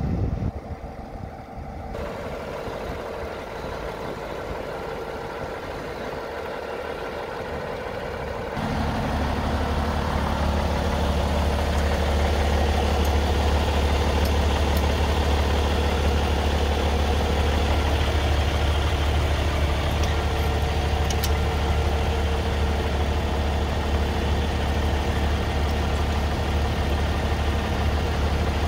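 Large diesel engine of a luxury Class A motorhome idling steadily, a low hum that gets louder about nine seconds in.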